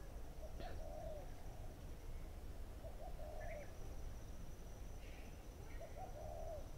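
A bird's low cooing call, three short coos about two and a half seconds apart, over a faint steady low rumble.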